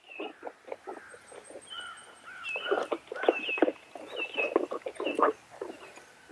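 Birds calling: a run of short repeated chirps and chatter, busiest and loudest in the middle stretch.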